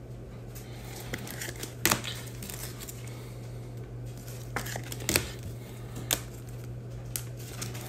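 Penny-sleeved trading cards being slid into rigid plastic toploaders: scattered short plastic clicks and rustles, over a steady low hum.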